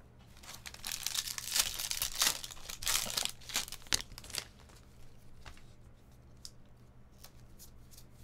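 Foil wrapper of a Bowman baseball card pack being torn open and crinkled for about four seconds, then softer clicks and slides of the trading cards being handled and flipped through.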